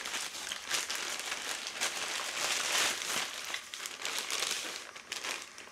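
Plastic poly mailer bag crinkling as it is handled and opened, most intense in the first three seconds or so and thinning toward the end.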